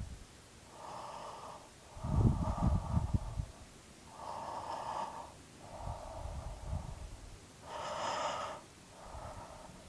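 A person yawning close to the microphone: a run of deep breaths in and out, each about a second long. The loudest breath, about two seconds in, carries a rough, rasping rumble from the throat, and a sharper, airier breath comes near the end.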